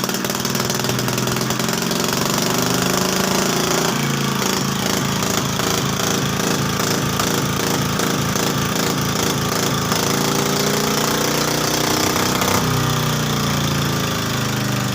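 Single-cylinder 'Peter' diesel engine running steadily after a mechanic's repair, its sound being checked to see whether the fault is cured. Its note changes about four seconds in and again near the end.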